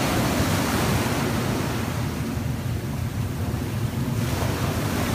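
Ocean surf breaking and washing up a sandy beach, with wind buffeting the microphone. The hiss of the wash thins out in the middle and rises again about four seconds in as a wave runs in.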